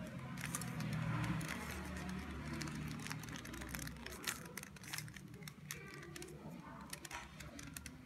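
Plastic 3x3 Rubik's cube turned by hand: irregular clicks and clacks as its layers rotate, several to the second.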